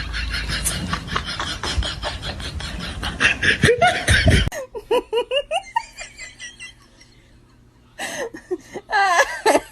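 People laughing hard in rapid bursts, cut off abruptly about four and a half seconds in; short rising and falling vocal squeals follow, and the laughing starts up again near the end.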